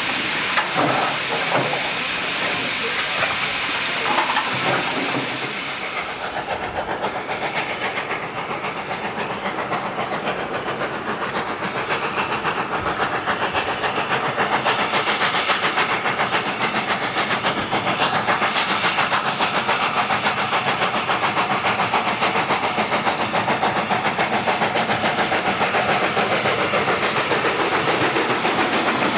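A standing steam locomotive blowing off a loud, steady hiss of steam. After an abrupt change, a steam locomotive hauls a passenger train towards the listener, its steady exhaust beat growing louder as it nears.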